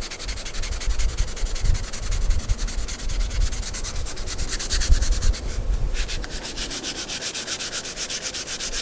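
Fine-grit sandpaper rubbed by hand in quick back-and-forth strokes over a primed steel school-bus panel, smoothing down paint runs. The strokes stop briefly about two-thirds of the way through.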